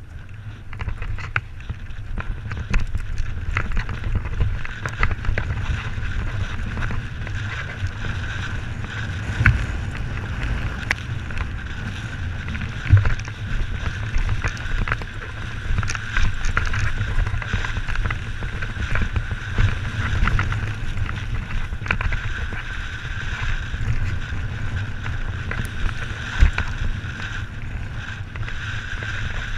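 Mountain bike rolling fast down a dirt and gravel trail, heard from a helmet-mounted camera: wind buffeting the microphone over a low rumble from the tyres and frame, with frequent clicks and rattles as the bike runs over stones.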